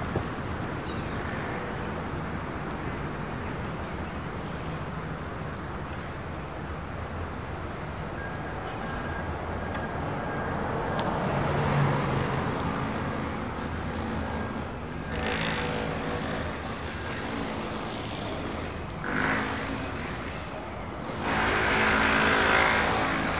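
Road traffic going by, with vehicles passing one after another; the loudest pass comes near the end.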